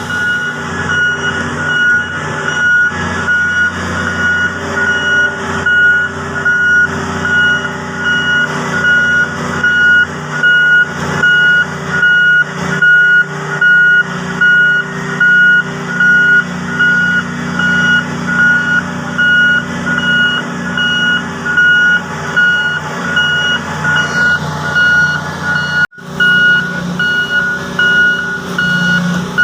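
Heavy mining equipment's reversing alarm beeping in a steady repeating pattern over the low, continuous drone of a large diesel engine. Near the end the sound briefly cuts out, then resumes.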